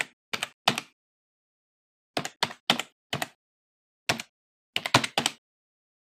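Computer keyboard keystrokes, one click per letter as a word is typed out. They come in uneven bunches: two, then four close together, a single one, and a quick three near the end.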